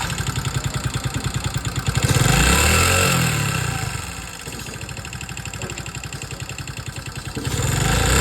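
Motorcycle engine idling with an even, pulsing beat; about two seconds in it is revved, rising and falling back to idle, and it picks up again near the end.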